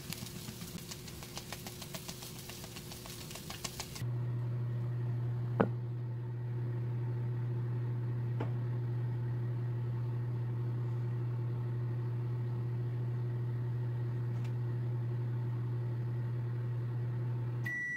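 Corn kernels sizzling and crackling in a frying pan, then about four seconds in an abrupt change to the steady low hum of a microwave oven running, with a sharp click shortly after; the hum stops just before the end, as the oven finishes.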